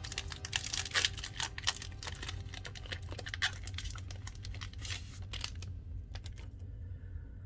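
Foil booster-pack wrapper crinkling and tearing as it is ripped open, a dense crackle for the first five seconds or so that thins to a few faint rustles near the end.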